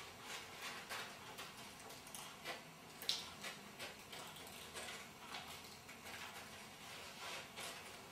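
Scissors snipping paper: a run of faint, irregular clicks and snips, a couple a little louder about two and a half and three seconds in.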